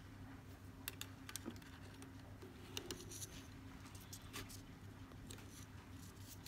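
Faint, scattered small clicks and rustles of fingers handling and pulling macrame cord while tying clove-hitch knots, over a steady low hum.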